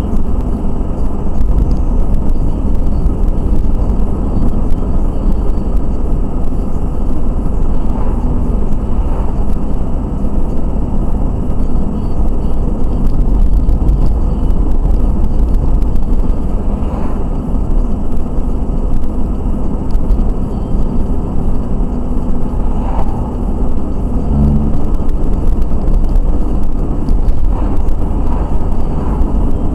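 Steady low rumble of road and engine noise from a car driving along a city street, heard inside the car's cabin.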